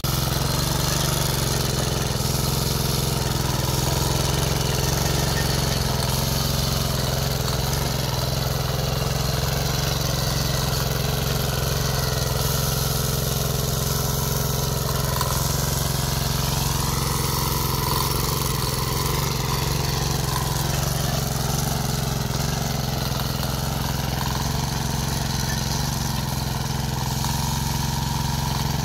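Small petrol engine of a walk-behind rotary tiller running steadily as its tines churn through soil.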